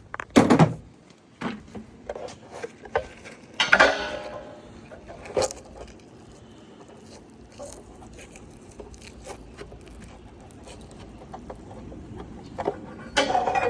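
Metal anode rod being handled: a knock, then a ringing metallic clatter about four seconds in and a few lighter knocks. After a quiet stretch there is another metallic clink near the end.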